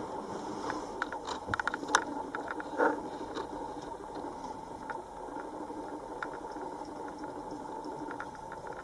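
A few light clicks and taps from handling small parts and tools while fitting a cabinet switch, bunched in the first three seconds. A steady mechanical hum runs underneath.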